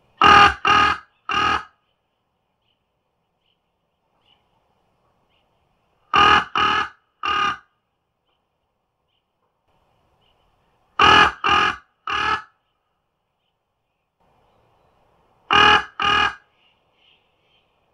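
Crow cawing: harsh, loud caws in groups of three, a group about every five seconds, the last group only two caws.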